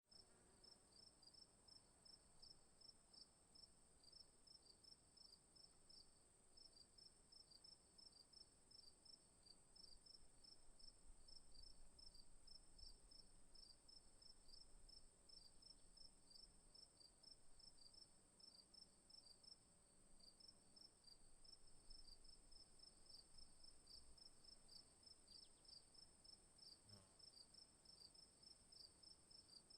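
Faint crickets chirping in a quick, even rhythm, about three to four chirps a second, over a steady high insect trill.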